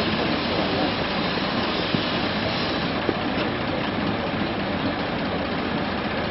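Fire hose spraying a water jet: a steady rushing hiss.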